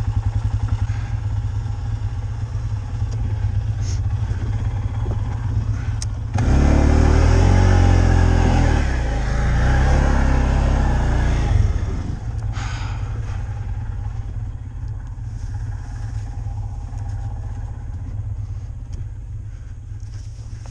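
Vehicle engine running steadily while driving through deep snow, revving hard under load for about five seconds in the middle, then settling back to a steady run.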